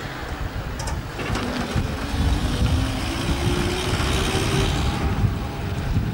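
Vintage flatbed lorry's engine running as it drives past and pulls away through a turn, its note rising gently from about a second in until near the end.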